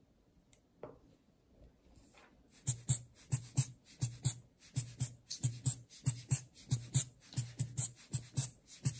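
Pen or marker writing on paper, a steady run of scratchy strokes about three a second that starts about two and a half seconds in, after a single click about a second in.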